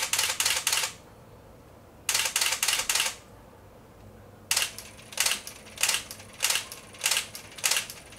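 Nikon F4 35mm SLR firing: shutter and built-in motor film advance in two short bursts of several frames in continuous low-speed mode, then from about halfway an evenly spaced run of shots in continuous silent mode. In silent mode the shutter sounds almost the same, but the film advance is a little quieter.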